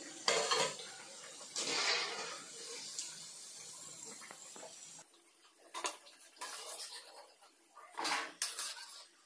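Chicken vadas sizzling in hot frying oil, a steady hiss with some louder swells, as they are turned and lifted out, with metal clinks of the spoon against the pan. About halfway the sizzle stops abruptly, and a few separate clinks and taps of metal and dishes follow.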